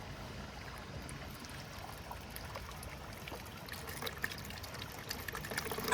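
Water trickling steadily, with scattered small ticks and splashes.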